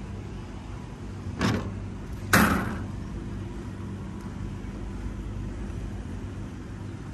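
Steady low mechanical hum broken by two short hissing whooshes, about one and a half and two and a half seconds in. The second whoosh is louder and fades over about half a second.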